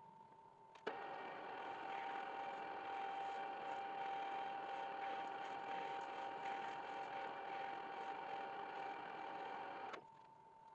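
A workshop machine's electric motor starts with a click about a second in, runs at a steady pitch for about nine seconds, and then cuts off abruptly.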